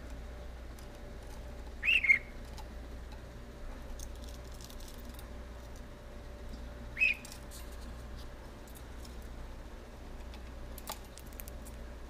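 Budgerigar giving two short whistled chirps about five seconds apart, with faint scattered clicks between them.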